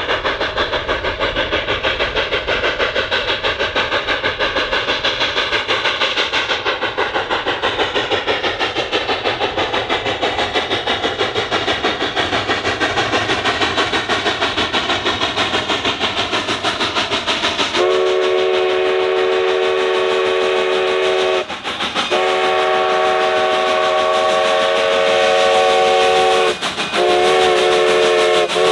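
Cumbres & Toltec narrow-gauge 2-8-2 steam locomotive working hard, its exhaust beating steadily at about four chuffs a second. About two-thirds of the way in, its multi-chime steam whistle sounds two long blasts, then a short one, and starts another. This is the long-long-short-long grade-crossing signal.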